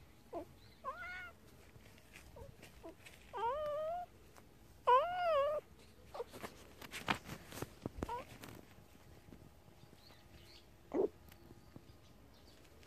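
A cat meowing three times, each call rising and then falling in pitch, the third the loudest, followed by a few soft clicks and rustles.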